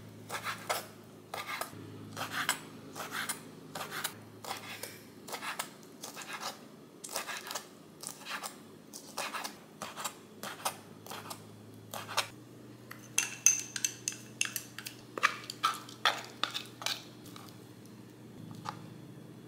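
Kitchen knife chopping squid and then shrimp on a wooden cutting board: repeated sharp knocks of the blade on the wood, about two to three a second, thinning out near the end.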